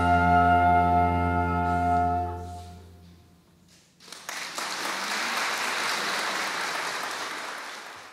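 Soprano and baroque ensemble holding the final chord of a sacred piece, which dies away about three seconds in. After a moment of quiet, the audience applauds until the sound fades out at the end.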